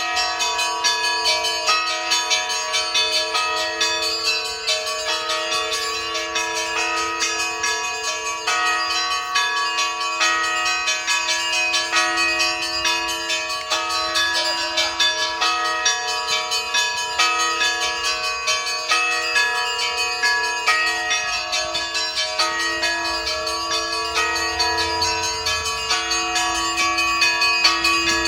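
Russian church bells ringing continuously: many smaller bells struck in quick, rhythmic succession over the long, humming ring of the larger bells.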